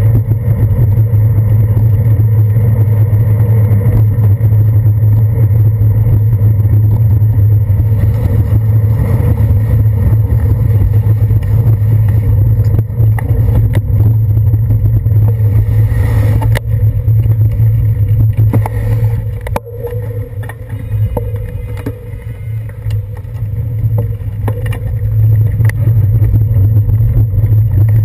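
Bicycle ride heard through a handlebar-mounted GoPro Hero 2: a loud, steady low rumble of road vibration and wind buffeting, with a few sharp knocks from bumps. The rumble eases for a few seconds past the middle, then comes back up.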